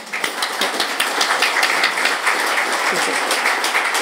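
Audience applauding: many people clapping together, steady and fairly loud.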